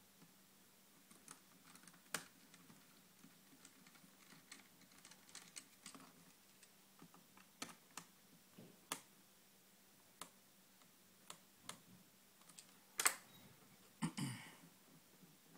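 Faint, scattered clicks and taps of a mini screwdriver and small screws against the netbook's plastic lid and screen frame, with a sharper click and a short clatter near the end.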